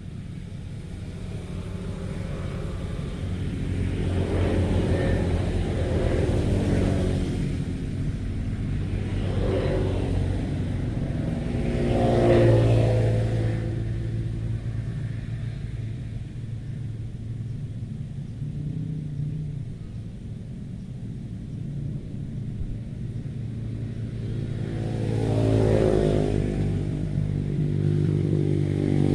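Motor vehicles passing one after another over a steady low rumble, each engine swelling and fading as it goes by, several times.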